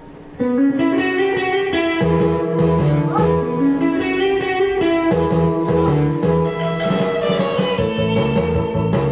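Karaoke backing track starting abruptly about half a second in: a guitar melody, joined about two seconds in by a lower bass line.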